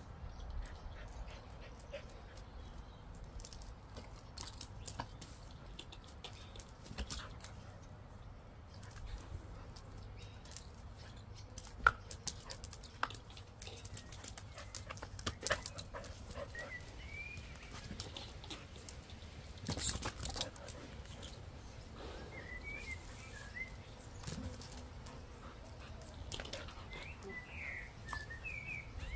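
Australian kelpie x border collie dog playing on paving, snapping at bubbles: scattered clicks and scuffs from jaws and paws, with one sharp snap about twelve seconds in and a short flurry near twenty seconds.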